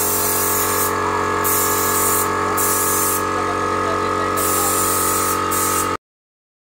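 Paint spray gun hissing in short bursts, about one a second, as the trigger is pulled and released. Under it runs the steady hum and whine of the air compressor feeding the gun. Both cut off suddenly about six seconds in.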